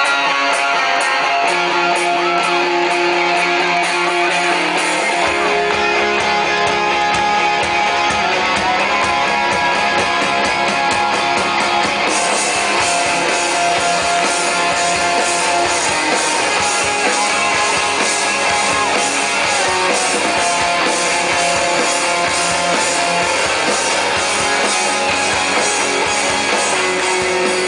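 Live rock band playing an instrumental intro led by electric guitars; the bass and drums come in about five seconds in, and the sound grows fuller around twelve seconds in.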